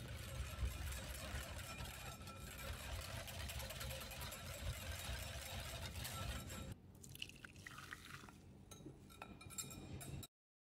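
Kitchen sounds from making custard filling: liquid and utensils clinking over a steady low background noise. The noise drops off suddenly about two-thirds of the way in, leaving a few light clinks before the sound cuts out.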